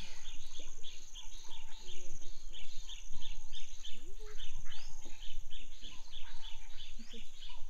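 Riverine bush sounds: a steady, high insect buzz, with a bird calling in a long run of short repeated notes, about three a second.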